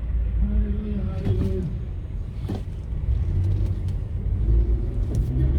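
A moving car: the steady low rumble of its engine and tyres on the road.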